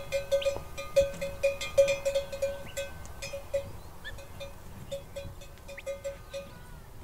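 A bell clanking over and over in quick, uneven strokes on one note, with a short break about halfway through.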